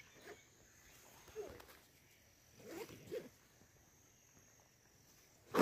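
Faint outdoor ambience: a steady, high-pitched insect drone, with a few soft, brief sounds near the start, about a second and a half in, and around three seconds in.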